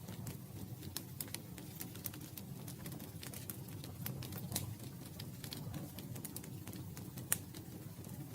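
Campfire crackling: a steady low rumble of burning wood with frequent sharp pops and snaps, and one louder pop about seven seconds in.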